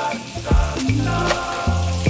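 Background music: a bass line moving in stepped notes under a regular drum beat, with a hiss over the top.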